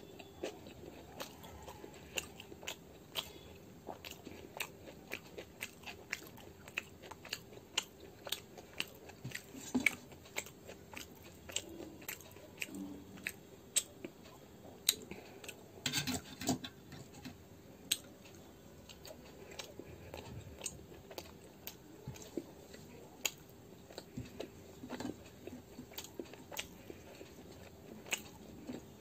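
Close-up chewing and eating sounds of a person eating gobhi paratha (cauliflower-stuffed flatbread): irregular soft clicks and smacks of the mouth, busiest about halfway through. A faint steady hum runs underneath.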